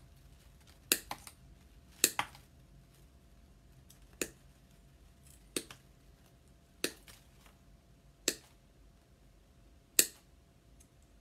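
Sharp snips of a hand cutting tool cutting flower stems and greenery, about nine in all, one every second or two, some in quick pairs.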